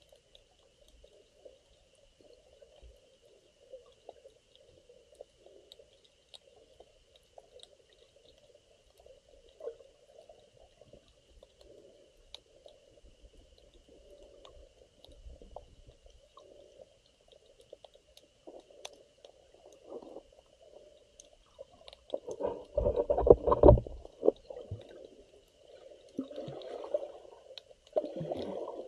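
Muffled underwater water sounds heard through an underwater camera housing: faint sloshing and gurgling, with louder stretches of sloshing and knocking about two-thirds of the way in and again near the end.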